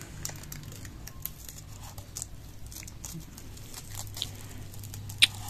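Clear plastic carrier film being peeled off fresh black vinyl wrap, crinkling and crackling in scattered small bursts, with one sharp click near the end. A low steady hum runs underneath.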